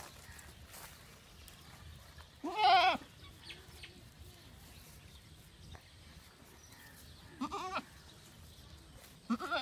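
Goats bleating: a loud, wavering bleat about two and a half seconds in, a fainter one near eight seconds, and another starting just before the end.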